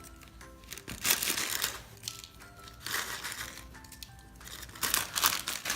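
Quiet background music, a slow melody of single plucked notes, with three short bursts of crinkling and rustling about two seconds apart.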